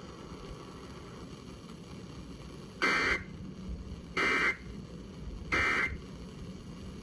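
Emergency Alert System end-of-message code played over a radio: three short, identical digital data bursts about a second and a half apart, starting about three seconds in, marking the end of the alert. A faint steady radio hiss lies between them.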